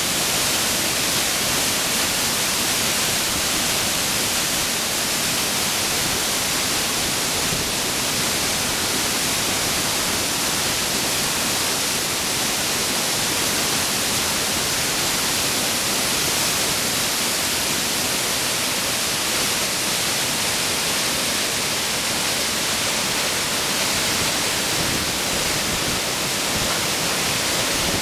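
Waterfall pouring steadily, a dense, even rush of falling water carrying snowmelt.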